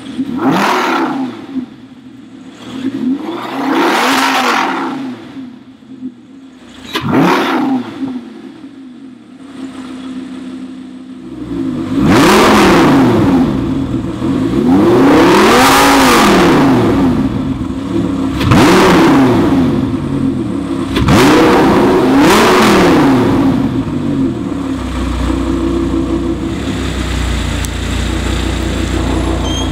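Audi R8's 5.2-litre V10 revved in short blips through an Xcentric valvetronic exhaust: three quieter revs with the exhaust valves closed, then after the valves open, about eleven seconds in, a louder, deeper sound with four more revs. It settles into a steady idle with a deep rumble near the end.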